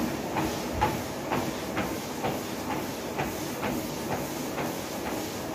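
Footfalls of someone walking on a motorized treadmill, about two steps a second, over the steady whir of the running belt and motor.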